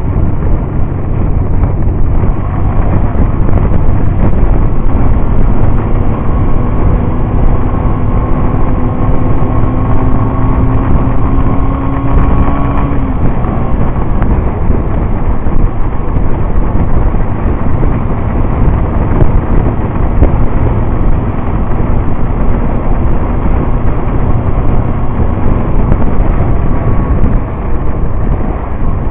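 Motorcycle riding on the open road: loud, steady wind rush over the microphone and engine noise. An engine drone climbs slightly in pitch from about six seconds in and drops away about thirteen seconds in.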